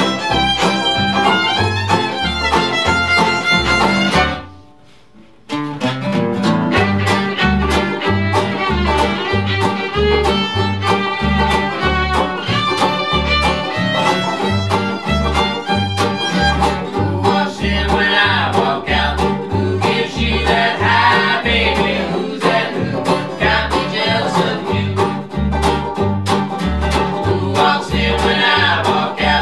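Acoustic bluegrass band playing: acoustic guitar, banjo and upright bass, the bass keeping a steady beat. The band stops dead about four seconds in and comes back in a second later, and voices sing through the second half.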